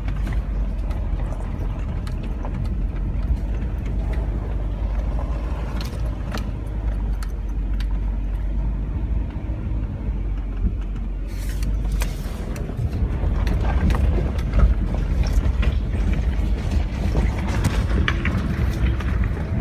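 Inside a 4x4's cabin while driving slowly on a dirt track: a steady low rumble of engine and tyres. About halfway through, crunching and popping of stones under the tyres comes in as it rolls onto loose river cobbles.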